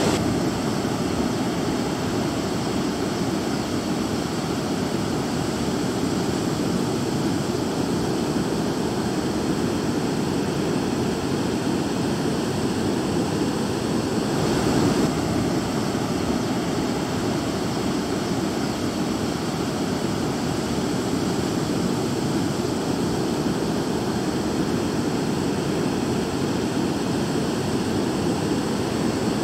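Ocean surf breaking and washing up the beach, a steady rushing noise that swells briefly about halfway through.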